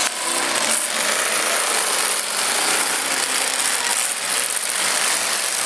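Wrecked demolition-derby pickup trucks running their engines as they push against each other, a steady rattling, clanking mechanical noise with a few faint knocks.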